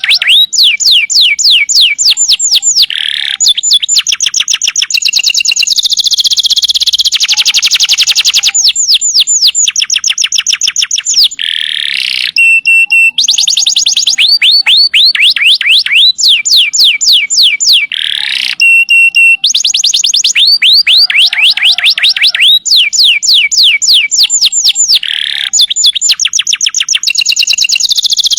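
Canary singing a long, loud song of fast trills, each trill a rapid run of falling whistled notes. The trills change in pitch and speed every second or two, and twice there is a short buzzy rattle.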